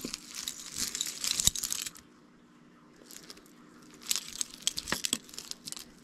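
Costume jewelry being handled and sorted in a pile: beads, chains and metal pieces rustling and clicking against each other. The noise comes in two spells with a lull about two to three seconds in, and there are a few sharp clicks.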